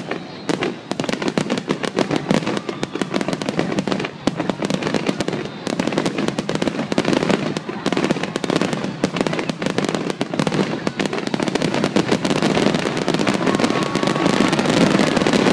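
Fireworks finale barrage: a dense, unbroken run of aerial shell bursts and crackling, building louder over the last few seconds.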